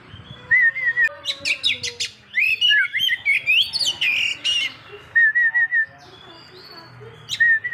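Oriental magpie-robin (kacer poci) singing: a varied run of loud whistled notes, sharp chirps and rising and falling glides, broken by short bursts of three or four quick repeated notes.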